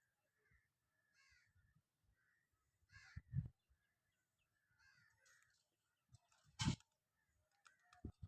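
Faint, short bird calls repeating at intervals, with a few dull knocks, the loudest about three and a half and six and a half seconds in.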